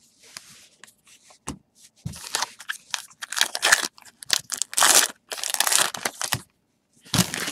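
A Topps Heritage baseball card pack being torn open, its wrapper crinkling: a run of short ripping and crackling sounds, sparse at first and busier from about two seconds in.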